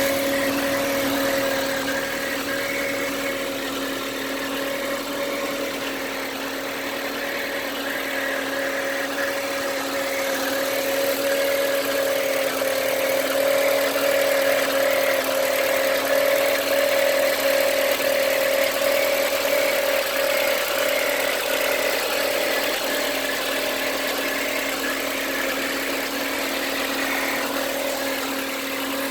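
VW Passat B5 1.8 four-cylinder engine idling with an odd steady whine or hum on top, whose source the owner cannot place. The hum grows a little louder around the middle and then settles again.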